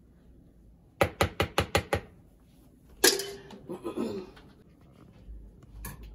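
Spoon tapping on the rim of a plastic food container, about six quick taps in a second, then a louder short pitched sound that falls in pitch.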